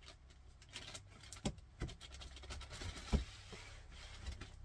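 Engineered hardwood floor planks being handled and fitted: faint scraping and rubbing as a plank is worked into the channel of the one before it, with a few light knocks of wood on wood.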